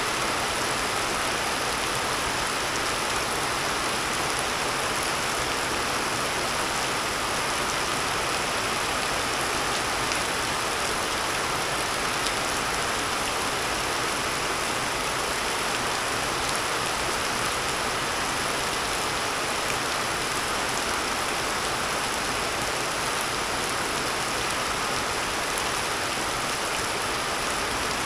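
Steady rain falling, an even unbroken hiss of drops with no let-up.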